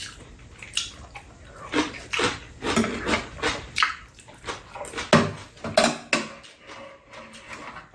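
Eating sounds: chewing and slurping mouthfuls of spicy webfoot octopus, with chopsticks and spoons now and then clicking against bowls and a metal tray.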